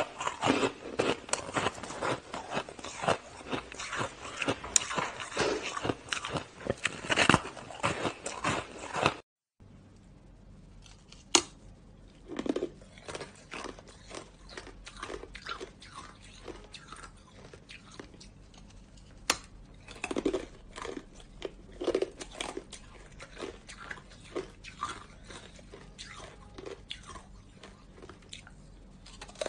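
Close-up crunching and chewing of hard frozen ice, dense and continuous at first. After a brief dropout about nine seconds in, the bites come slower and more separate, with a few loud crunches.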